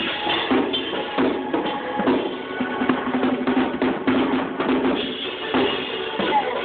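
A drum kit played in a busy, continuous pattern of strokes, with other pitched music sounding along underneath.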